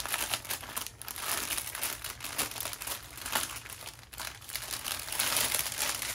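Clear plastic packaging crinkling as a rolled bundle of small bags of diamond-painting drills is handled and unrolled, with irregular crackles that grow louder about five seconds in.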